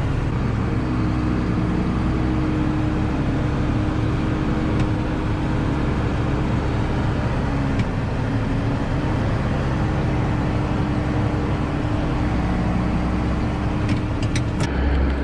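Tractor engine running steadily at constant speed, with a few light clicks near the end.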